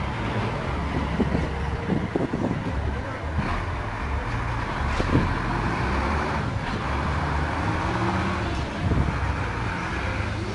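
Blue Bird All American bus engine running just after starting, a steady low rumble with a few knocks in the first couple of seconds.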